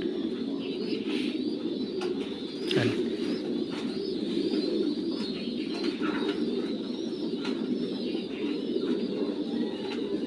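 Steady low cooing of pigeons, with faint scattered clicks and rustles.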